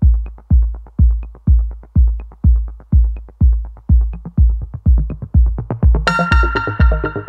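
Electronic music with a drum-machine beat: a deep kick drum about twice a second, joined by a bright synthesizer chord about six seconds in.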